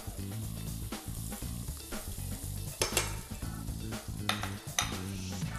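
Butter sizzling as it melts in a hot frying pan while metal tongs push it around, with a few sharp clicks of the tongs against the pan about three seconds in and again near the end. Soft background music underneath.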